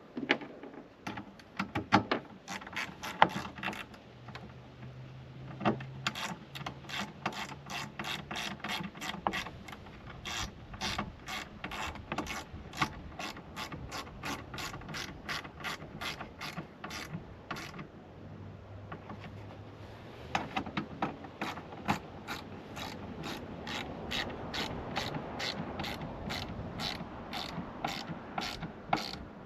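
Hand ratchet wrench clicking in long quick runs as mounting bolts are tightened, with a few louder knocks in the first few seconds.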